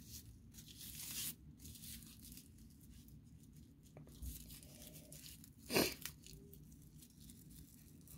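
Raffia strands rustling and crinkling in the hands while a small bow is tied, with a louder, sharper rustle a little before six seconds in.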